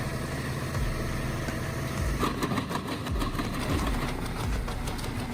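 Wood chipper's engine running steadily, with rapid clicking and cracking joining in about two seconds in as branches go through.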